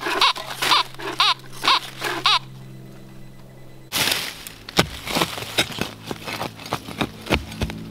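Metal detector beeping repeatedly, about two short rising-and-falling tones a second, as its coil is swung back and forth over a buried target. After a short lull, a hand digging shovel chops and crunches into root-bound forest soil in a quick series of sharp strikes.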